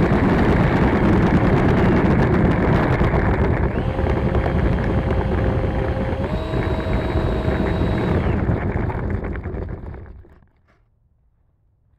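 The E-flite Viper's 70 mm electric ducted fan running with a rush of air and a steady whine, its pitch stepping up slightly about six seconds in. The sound dies away and stops about ten seconds in, leaving near silence.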